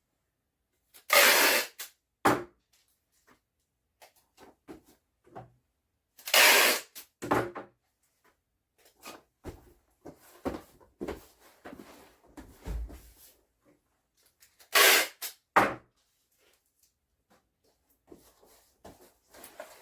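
Shipping tape pulled off the roll three times, each a loud rip of about a second followed by a short snap as the strip is cut, with quieter rustling and pressing of tape between the pulls.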